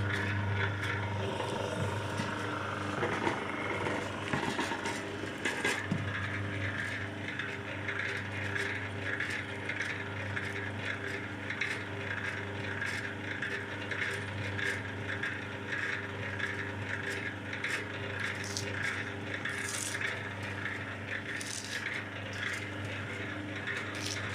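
MQ-38 electric cable-stripping machine running: its motor and reduction gear hum steadily while the rollers draw a flexible rubber-insulated cable through and the knives slit the insulation. Over the hum there is a regular rattling and scraping, with scattered clicks.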